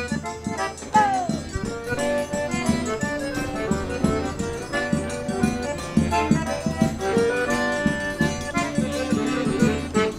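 Live forró band playing an instrumental passage between sung lines: an accordion melody over a steady rhythmic beat.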